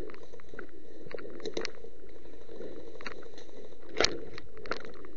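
Running footsteps through dry fallen leaves on a forest floor, a soft thud about every second and a quarter with many small leaf crackles, and one sharp crack about four seconds in.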